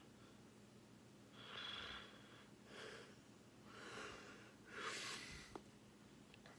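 A sleeping person's faint breathing: four short, hissy breaths about a second apart, then a single sharp click near the end.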